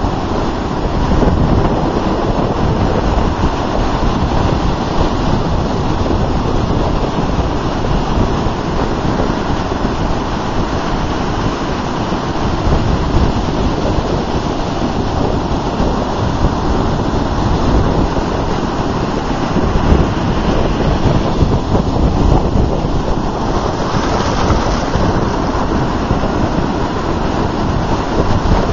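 Ocean surf breaking and washing up the sand close by: a steady rushing noise of waves, with wind rumbling on the microphone. The hiss of foam swells briefly about two-thirds of the way through as a wash runs in.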